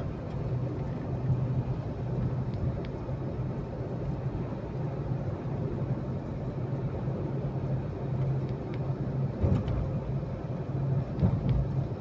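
Steady low background hum and rumble, with a few faint ticks.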